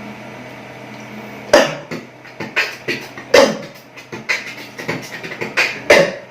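A person coughing in a run of about eight sharp coughs, with the loudest about a second and a half in, in the middle, and near the end.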